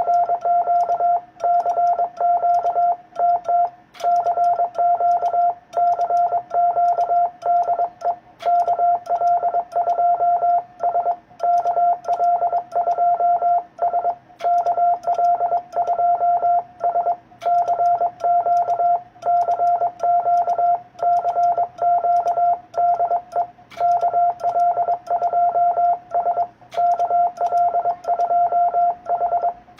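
Morse code (CW) from an amateur radio transceiver: a single steady tone keyed on and off in dots and dashes, continuing without pause.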